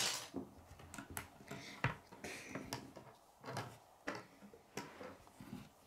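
Plastic K'nex pieces clicking and knocking as a rod is pushed into a connector and handled on a wooden tabletop: a handful of separate small ticks spread out, with soft handling noise between them.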